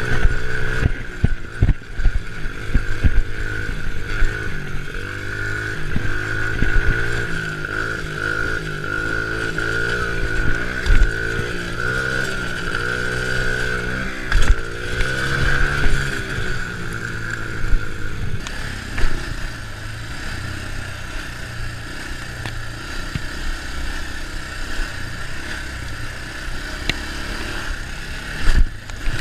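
ATV engine running while riding a dirt trail, its pitch rising and falling with the throttle, with scattered knocks and thumps from the bumpy ride. The engine's pitch drops away about two-thirds of the way through.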